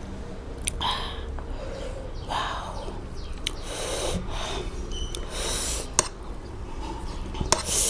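A person sniffing and breathing hard through the nose while eating very spicy instant noodles, in about four short hissy breaths roughly a second and a half apart. A few sharp clicks from chewing or utensils come between them.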